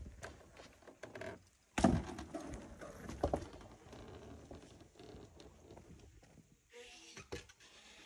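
Mountain bike riding over wooden trail features: a sharp knock about two seconds in, then a run of rattling and clatter as the tyres and frame go over the wood.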